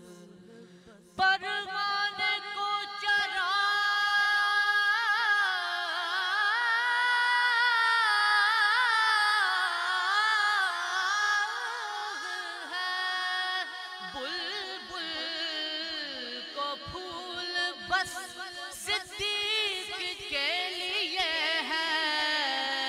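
A man singing an Urdu naat, a devotional poem, unaccompanied into a microphone. The voice holds long, winding, ornamented phrases and comes in about a second in, after a brief quiet moment.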